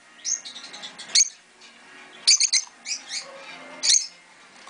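Caged rosy-faced lovebirds chirping: short shrill calls about every second, with a quick run of three about halfway through.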